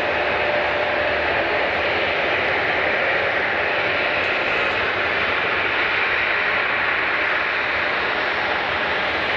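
Jet airliner engines running: a steady, loud rushing noise with a faint hum underneath that does not rise or fall.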